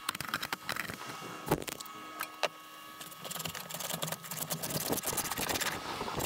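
Hand tools working on wood: a run of sharp clicks and knocks, then rapid scraping or rubbing strokes in the second half.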